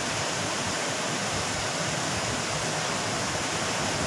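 Steady, even rushing noise with no distinct events, like flowing water.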